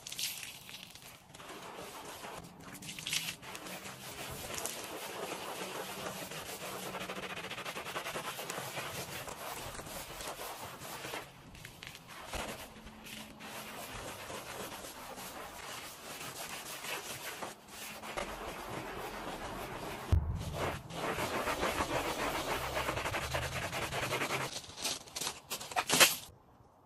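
Wet sponge scrubbing glazed floor tiles, a steady scratchy rubbing that pauses now and then, with a thump about two-thirds through. Near the end comes a sharp splash as water is thrown over the tiles.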